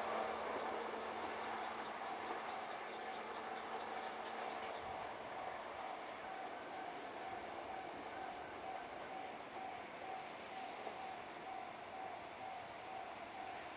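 Insects calling: a steady high trill and a chirp that pulses on and off at an even rate, over the rumble of a passing train that slowly fades away.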